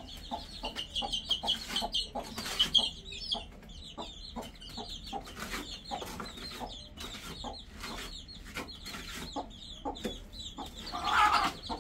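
Domestic fowl clucking and chirping, with many light knocks and clicks throughout and a louder call a little after eleven seconds.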